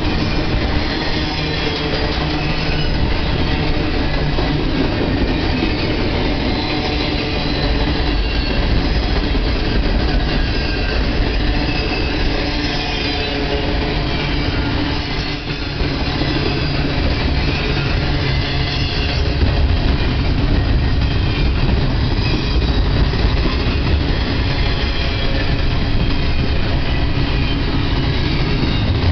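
BNSF double-stack intermodal train's container well cars rolling past close by: a loud, steady rumble of steel wheels on rail, with faint high wheel squeal over it.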